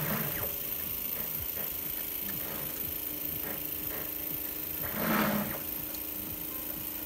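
Pick-and-place machine's stepper motors driving the gantry and nozzle head in quick back-and-forth moves, each a short whir that rises and falls in pitch, with light clicks. A longer, louder move comes about five seconds in, over a steady faint hum.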